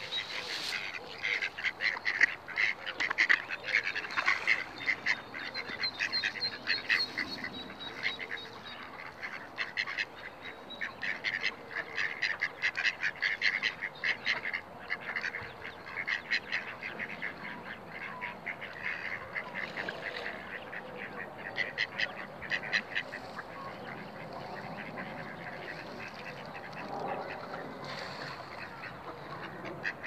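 Mallard ducks quacking in quick, chattering runs of short calls. A thin, high bird song sounds faintly behind them a few seconds in.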